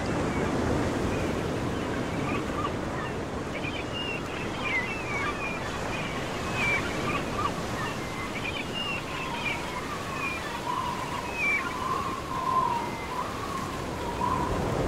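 A steady rushing noise like surf or wind, with thin wavering high calls or whistles over it that sit higher in the middle and lower near the end.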